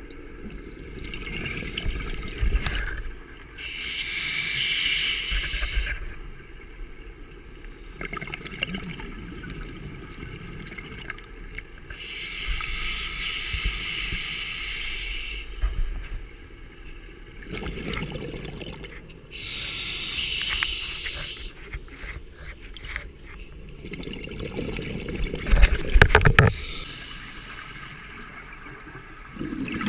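A scuba diver breathing through a demand regulator, about four breaths. Each breath is a hissing inhale of a couple of seconds followed by a gurgling rush of exhaled bubbles, and the bubbling is loudest near the end.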